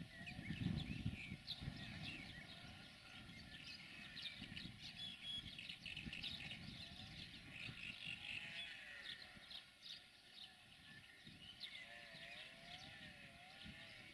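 Faint birdsong: many short chirps and calls from several birds, with a warbling call near the end, over a low, uneven rumble.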